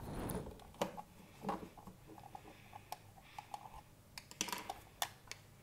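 Small screwdriver unscrewing the battery cover of a plastic RC drone controller: scattered light clicks and faint scrapes of metal and plastic, with a brief rustle of handling at the start.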